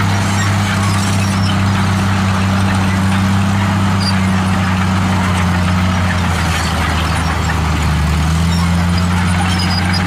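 Komatsu D63E crawler bulldozer's diesel engine running under load as it pushes dirt with its blade. The engine note sags for a second or two past the middle, then picks back up.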